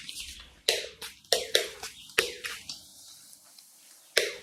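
Heat protector spray bottle being handled and used: a series of about six short, sharp sounds at irregular intervals.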